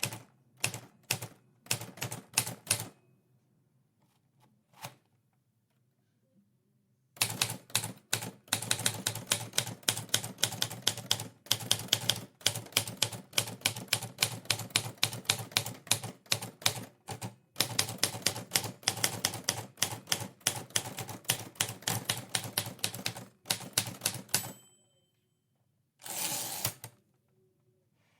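Typewriter keys striking: a few keystrokes, a pause of several seconds, then a long run of fast, steady typing. Near the end a short ringing ding sounds, then a roughly one-second sliding sweep, like the margin bell and the carriage being returned.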